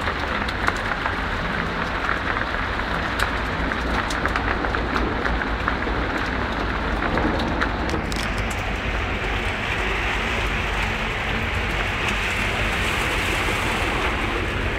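Heavy rain pouring down in a steady hiss, with many drops ticking close by. About halfway through the hiss turns brighter and more even.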